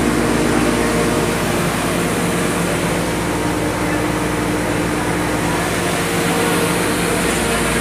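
Industrial grinding mill (pulverizer) running steadily while grinding powder: a loud, continuous machine noise with a constant hum.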